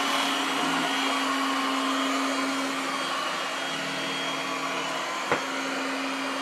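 Ecovacs Deebot T9+ robot vacuum running with a steady motor whine and suction hiss as it moves onto carpet, where it raises its suction power on detecting carpet. There is one short click about five seconds in.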